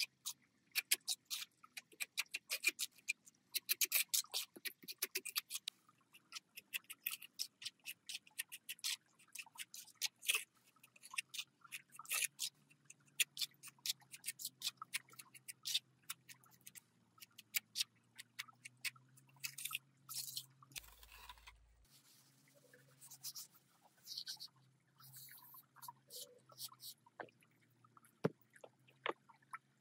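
Quick irregular clicks and short scrapes of hand work on a miniature construction model, coming in dense runs with short pauses, over a faint low hum.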